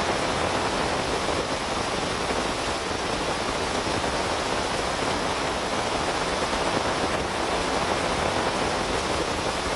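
Heavy rain falling steadily, a dense, even hiss with no single drops or thunder standing out.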